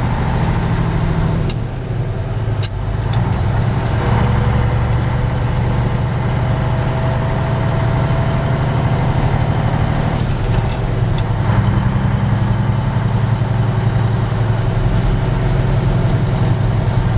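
Vintage Mack truck engine running under way, heard from inside the cab. The engine note drops off briefly about two seconds in and changes again around ten seconds in as gears are changed on the triplex transmission, with a few sharp clicks around each shift.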